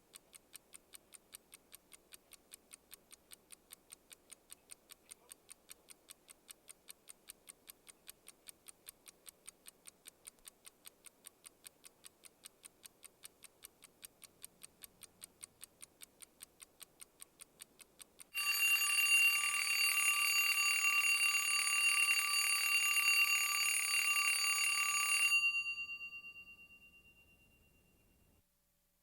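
Mechanical wind-up alarm clock ticking fast and evenly, then its alarm bell ringing loudly and continuously for about seven seconds before it stops and the bell rings out.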